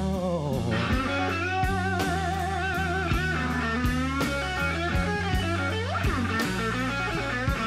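Live slow-blues electric guitar fill with wide vibrato and string bends, one bend rising about six seconds in, over bass and steady drum strokes.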